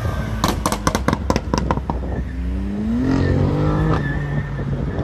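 BMW M4 convertible's twin-turbo straight-six crackling through its exhaust with a quick run of sharp pops, then accelerating hard away with a rising engine note that levels off near the end.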